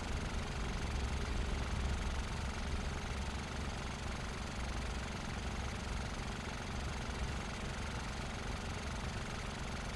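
Cartoon engine sound effect for a fire truck and a police car driving along together: a steady engine running.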